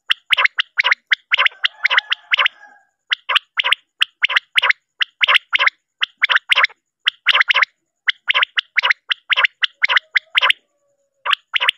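Male common quail calling: a sharp three-note phrase repeated over and over, about once a second. This is the male's advertising call.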